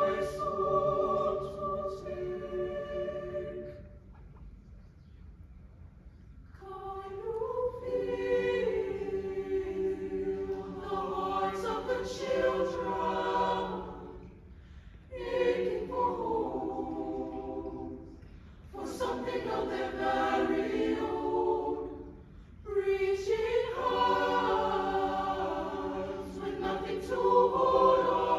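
A mixed high school choir singing unaccompanied in sustained chords, in several phrases with short pauses between them.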